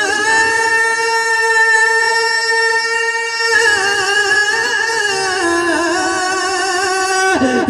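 A male naat reciter singing into a handheld microphone, holding one long steady high note for about three and a half seconds, then a second long note that slowly sinks in pitch and breaks off just before the end.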